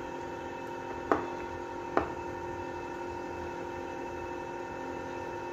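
Two sharp knocks about a second apart, a spoon striking the cooking pot while the korma is stirred, over a steady background hum.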